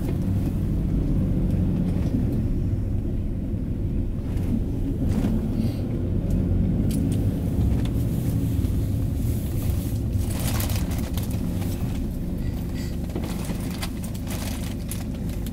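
Minibus cabin noise: the engine and road make a steady low rumble, with occasional light rattles and clicks.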